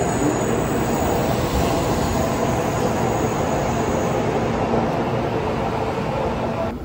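N700 series shinkansen train moving along a station platform, a steady rush of wheel and running noise.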